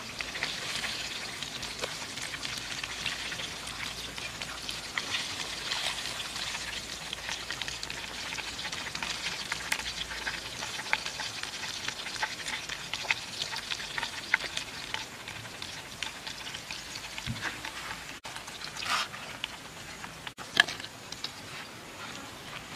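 Fish pieces sizzling as they fry in oil in a wok, a steady hiss with scattered crackles and pops.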